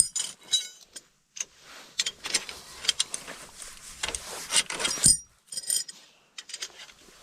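Irregular metallic clinks and knocks, some ringing briefly, with quieter handling noise in between.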